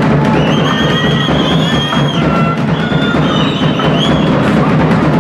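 Music with a percussive beat and long held high notes.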